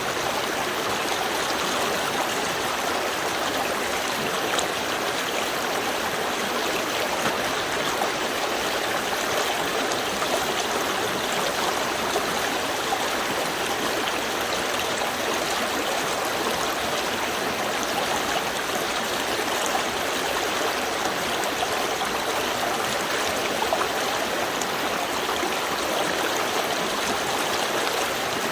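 Small river stream flowing over stones, a steady rushing with light trickling and gurgling.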